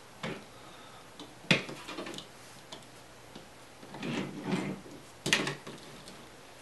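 Small plastic Transformers toy cars being set down and pushed along a hard tabletop: a few sharp clicks and knocks, loudest about a second and a half in and again about five seconds in, with a short rattling stretch around four seconds in.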